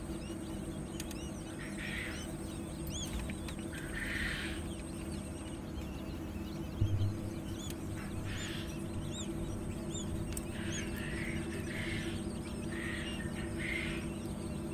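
Newly hatched quail chicks peeping: many short, high chirps overlapping throughout, over the steady hum of the hatching machine. A brief low bump comes near the middle.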